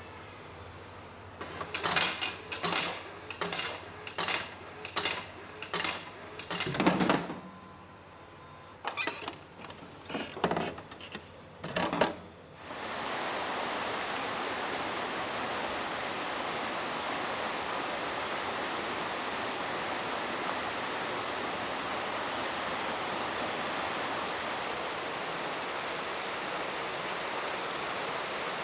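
A run of about a dozen sharp knocks, roughly one or two a second, fading out about twelve seconds in. Then a waterfall's steady rushing takes over and runs on evenly.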